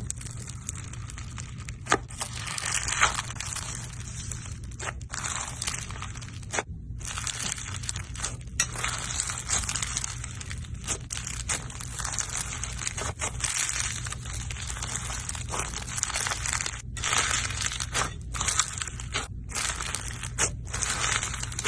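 Slime being squeezed and pressed by hand, crackling and crunching almost continuously with a few brief pauses, over a low steady hum.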